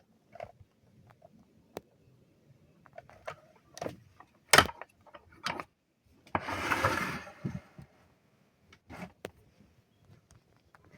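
Scattered knocks and clicks of hard objects being handled, the loudest about four and a half seconds in, with a rasping, noisy burst lasting about a second just after six seconds in.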